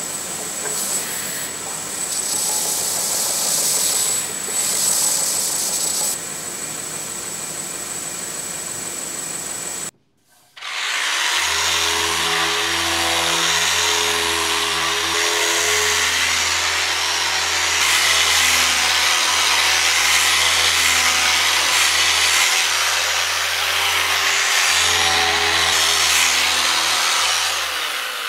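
A stationary belt sander runs with a steady high whine as a wooden case is sanded against it; after a sudden cut about ten seconds in, a Festool LS130 linear sander with P180 abrasive runs on the wooden case for the rest of the time, a steady motor hum under the rasp of the paper on the wood.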